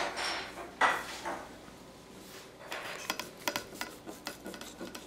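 Carving knife and china plates clinking and knocking while a roast duck is carved and the slices plated: two louder knocks in the first second, then a quick run of light clicks and taps near the end.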